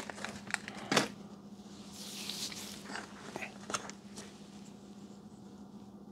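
Small hard-plastic clicks and knocks as a Baofeng UV-5R handheld radio is lifted out of its plastic charging cradle and its belt clip is handled, the sharpest click about a second in, with a soft rustle about two seconds in. A faint steady hum lies underneath.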